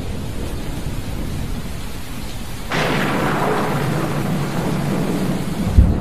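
Thunderstorm: thunder rumbling low under steady heavy rain. A little before halfway a louder hiss of rain cuts in suddenly, and near the end a deep boom of thunder comes.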